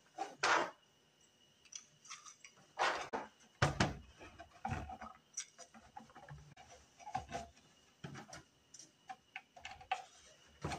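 3D-printed PLA shelf parts and small metal screws and hooks being handled and set down on a table: a string of irregular clicks and knocks, the loudest about half a second in and again around three to four seconds in.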